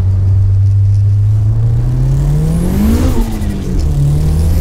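Nissan S15 Silvia's turbocharged SR20 four-cylinder engine heard from inside the cabin, pulling and rising in revs to a peak about three seconds in. The revs then drop sharply, as at a gear change, and climb again near the end.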